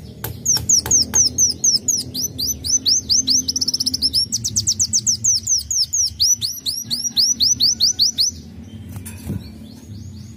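Sunbird singing a fast string of sharp, high, down-slurred whistled notes, several a second, which tighten into a quick trill about four seconds in and stop about eight seconds in. A few sharp clicks come in the first second.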